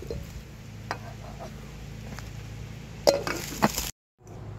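Pasta water trickling out of a lidded metal cooking pot onto shrub leaves, with light metal clinks from the pot and lid and two louder knocks about three seconds in. A steady low hum runs underneath.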